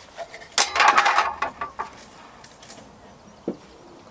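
Metal hand tools clinking and clattering as they are handled during marking-out of wood. There is a short burst of clatter about half a second in, then a few scattered clicks.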